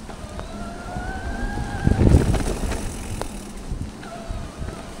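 Specialized Levo SL e-mountain bike on a wet, rooty trail: the mid-drive assist motor whines in two stretches, its pitch rising slightly, over tyre rumble and wind on the microphone. A heavy low thump comes about two seconds in, and a sharp click about a second later.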